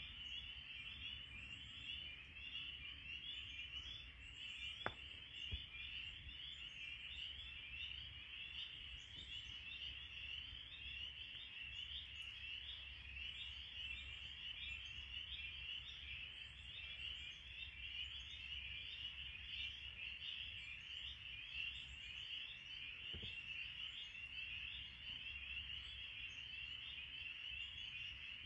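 A chorus of spring peepers: many frogs peeping at once in a dense, continuous, high-pitched wall of calls. A brief click about five seconds in.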